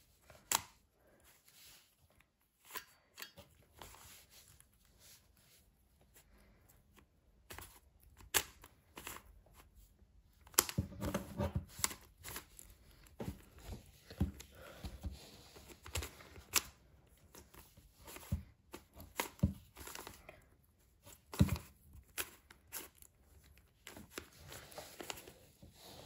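A brick-built puzzle cube being turned by hand: plastic clicks and scraping rattles as its layers rotate and the plastic bricks knock together. Sparse at first, then quicker and busier from about ten seconds in.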